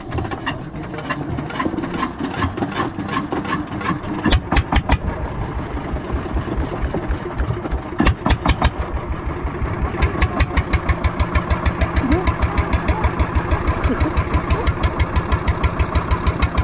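A fishing boat's small inboard engine, beating in short bursts about four and eight seconds in and then settling from about ten seconds into a steady fast exhaust beat of about eight pulses a second.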